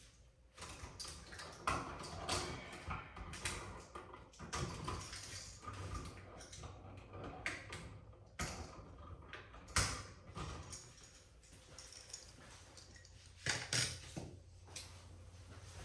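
Hands working wires and a light switch at a wall switch box: irregular rustling and scraping with scattered clicks and sharp knocks, the loudest about halfway through and again near the end.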